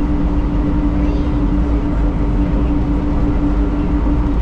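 Inside a DFW Skylink people-mover car (Bombardier Innovia APM 200) running at speed along its elevated concrete guideway: a steady low rumble of its rubber tyres with a constant hum from the drive.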